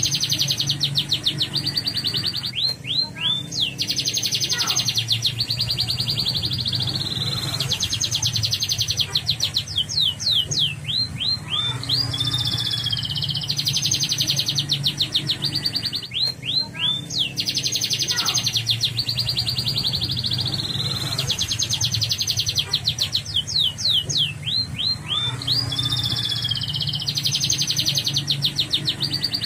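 Yellow domestic canary singing continuously in long, fast rolling trills, broken every few seconds by a run of short sweeping notes, phrase after phrase. A steady low hum runs underneath.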